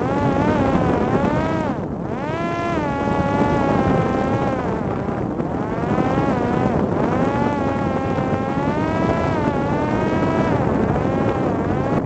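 Parrot Disco drone's electric pusher motor and propeller in flight: a buzzing whine whose pitch keeps rising and falling as the throttle changes, over steady wind rush.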